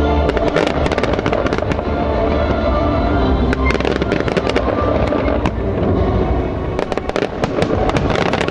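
Fireworks display: shells and crackling stars bursting in many sharp bangs and crackles, in bunches near the start and again near the end, over steady music.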